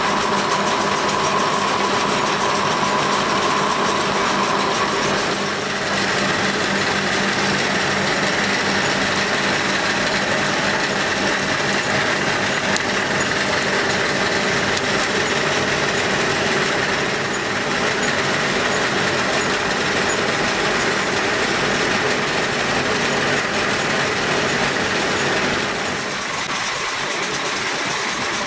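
Plastic rope-making extrusion machinery running: a loud, steady machine drone with a constant whine, whose pitch changes about five seconds in and again near the end.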